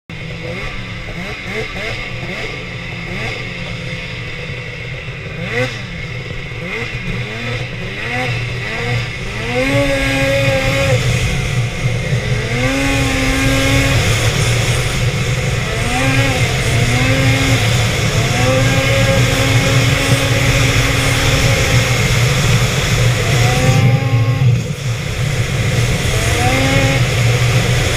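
Two-stroke snowmobile engine heard from the sled itself: revving up and down unevenly at low speed at first, then accelerating about ten seconds in to a higher, steady pitch at trail speed, with the throttle eased off and reopened several times.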